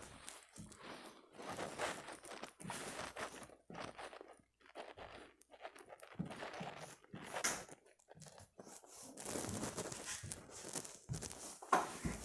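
Footsteps across a hard floor, with irregular crunching and rustling.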